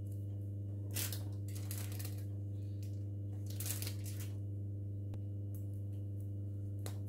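A few short rustles of hair and clothing as a braid is tied off with a hair elastic, over a steady low hum.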